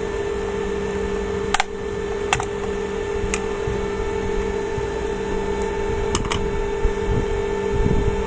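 A few sharp clicks and knocks of tools and plastic parts being handled, several of them doubled, as a steam iron is taken apart, over a steady electrical hum.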